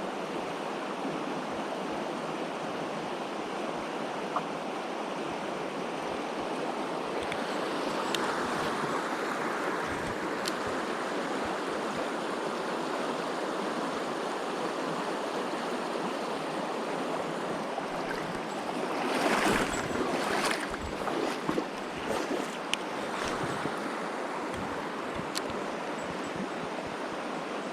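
Mountain stream rushing steadily over its bed. About two-thirds of the way through, several louder knocks sound close by.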